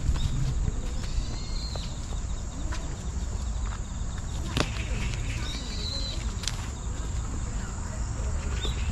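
Outdoor ambience: a steady low wind rumble on the microphone, with short high bird chirps twice and a few sharp clicks.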